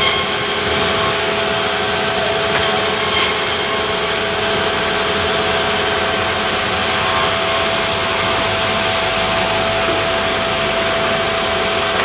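Sawmill band saw running steadily while it rips a slab of pulai wood, a constant machine noise with a steady whine from the saw.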